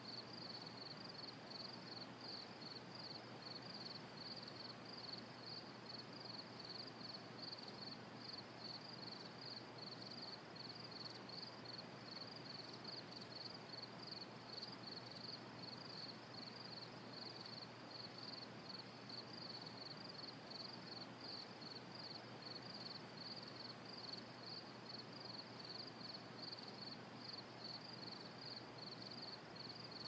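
Crickets chirping in a steady, even rhythm of about three high chirps a second, faint, over a low steady hiss.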